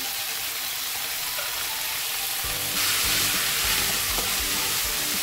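Oil sizzling in a frying pan of fried potatoes, onions and flaked tuna, a steady hiss that grows louder about three seconds in.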